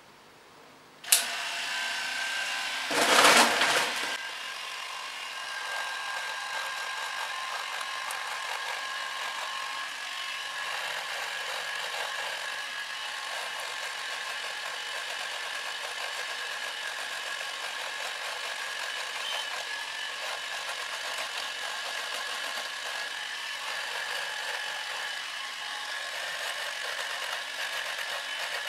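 Electric shaver switched on with a click about a second in, then running steadily with a high whine as it shaves off a long, six-month beard; a brief louder noise about three seconds in.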